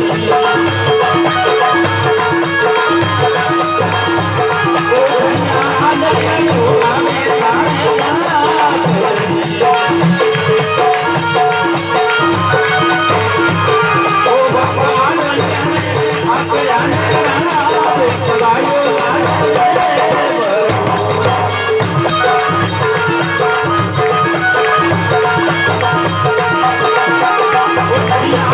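Live Rajasthani folk bhajan music from a band, with a short repeating melodic figure over steady percussion strikes.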